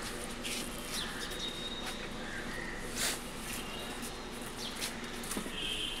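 Quiet street-shop ambience: a faint steady hum under scattered short bird chirps and a few light clicks.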